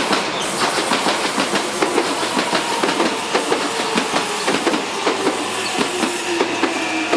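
A train passing over a level crossing, its wheels giving a rapid, continuous clatter over the rail joints.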